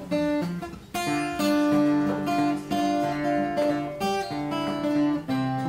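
Closing music played on a plucked string instrument: a melody of ringing notes over lower chord notes, with fresh plucks about a second in and again near the end.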